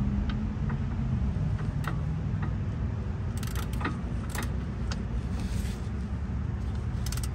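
Short runs of ratchet clicks from a ratchet and 13 mm deep socket turning a car's oil pan drain plug: a run about three and a half seconds in, another just after, and a quick run near the end, over a steady low rumble.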